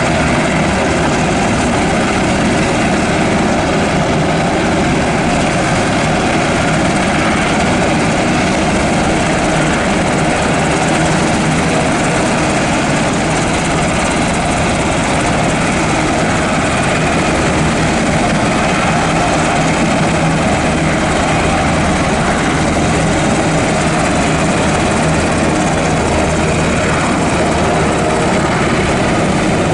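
Sikorsky UH-60 Black Hawk helicopter running on the ground with its rotors turning: steady turbine whine and rotor noise, unchanging in loudness.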